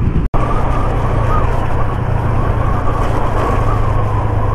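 Yamaha 135LC motorcycle's single-cylinder engine running steadily while riding, with wind rushing over the microphone. The sound cuts out for an instant near the start.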